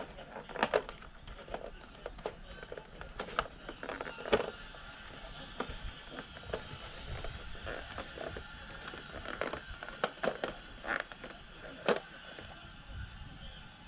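Boxing fight footage: music and a commentator's voice over steady arena crowd noise, with frequent sharp smacks.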